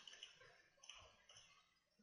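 Near silence: faint room tone with a few soft, brief noises.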